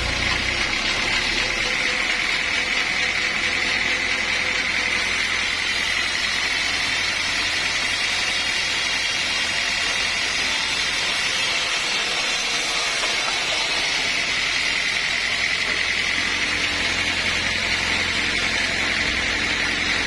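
Sawmill machinery running steadily: a motor's low hum under a constant high-pitched whine.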